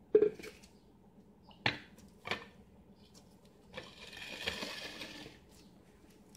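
Drinking glasses being handled and set down on a counter: a sharp knock just after the start, two more about two seconds in, then a scraping rustle lasting over a second as things are slid across the countertop.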